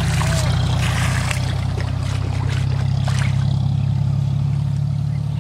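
Water splashing as it is bailed out of a shallow canal with a metal plate, a few throws in the first three seconds, over a loud, steady low engine-like hum.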